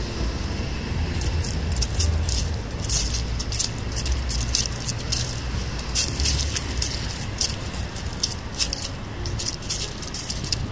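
Outdoor ambience: a low rumble with irregular crisp rustling and crackling sounds over it, densest about two seconds in and again near six seconds.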